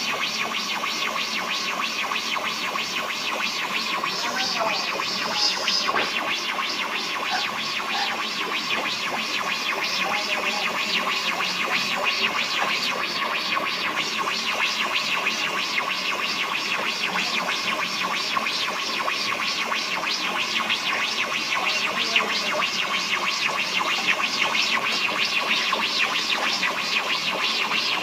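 Steady scratchy, crackling noise made of very rapid fine ticks, with no speech.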